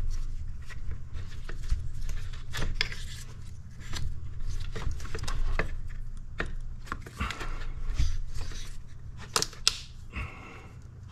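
Hands working a plastic quick-connect hose fitting and its release tool in an engine bay: irregular clicks, taps and plastic rattles, with two sharp clicks about nine and a half seconds in. A steady low hum runs underneath.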